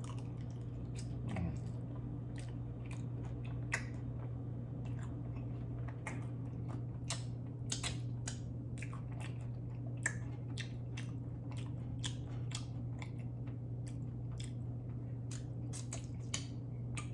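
Close-up mouth sounds of eating: chewing with irregular wet smacks and clicks. A steady low hum runs underneath.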